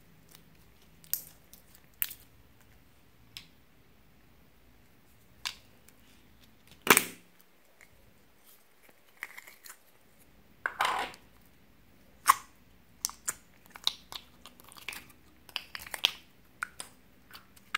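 Hands squeezing and pulling slime and handling a plastic egg-shaped container of clear green slime: separate sticky clicks and pops with quiet between them, the loudest about seven seconds in and coming more often in the last few seconds.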